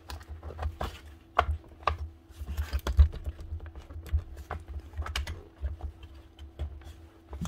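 Irregular small clicks, taps and knocks of screws being taken out of a Bosch 18 V SDS drill's plastic housing as it is handled and dismantled, with a faint steady hum underneath.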